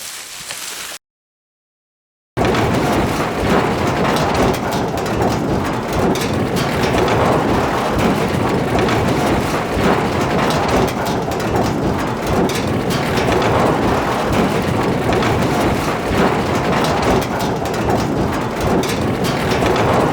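Droideka rolling sound effect on metal: a loud, steady rolling rumble with a constant scatter of small clatters. It starts after about a second of silence, which follows the cut-off end of a softer rolling effect.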